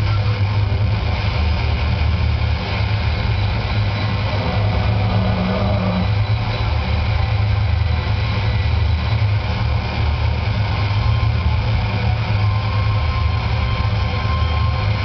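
Live dark ambient noise music: a dense, steady wall of low droning rumble from a guitar and a tabletop rig of effects pedals, with noisy hiss above it. A thin, steady high tone comes in about two-thirds of the way through.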